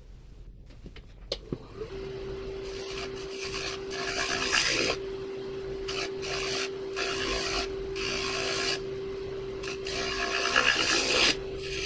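Powermatic wood lathe started with a click about a second in, its motor humming steadily. A turning tool takes repeated scraping cuts across the face of a spinning walnut bowl blank, a rough hiss with each pass, flattening the top face.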